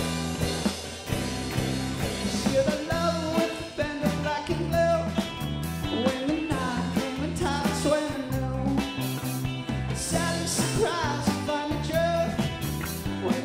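Live rock band playing: electric and acoustic guitars over a drum kit, with a melody line bending in pitch above the steady rhythm.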